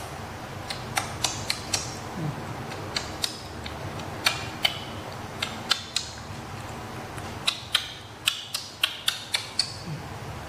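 Irregular short wet clicks and smacks, a few a second at most: a baby macaque chewing and lip-smacking on bits of food as it is hand-fed.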